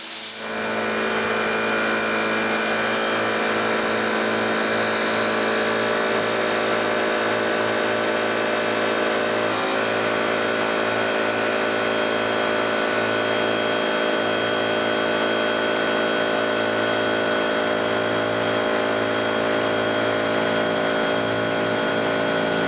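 Hitachi electric air compressor starting up and running steadily, with a loud, even motor-and-pump drone.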